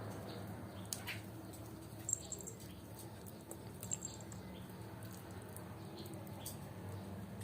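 A young leopard cat kitten eating boiled chicken: faint scattered chewing clicks, with two brief high squeaks about two and four seconds in.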